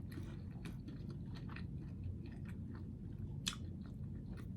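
Someone chewing baked, lightly breaded chicken close to the microphone: irregular small crunches and mouth clicks, with one sharper crunch about three and a half seconds in.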